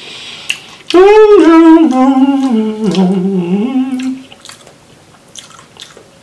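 A man humming a short wordless tune that lasts about three seconds, the notes stepping down one by one and lifting again on the last. A few faint clicks follow near the end.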